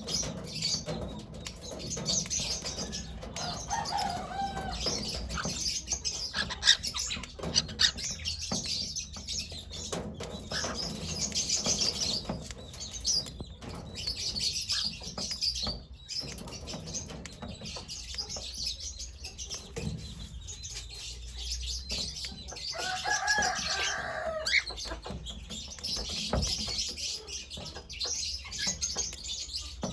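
Pet cockatiel chirping over and over in short, high chirps, with one longer, lower call about three-quarters of the way through.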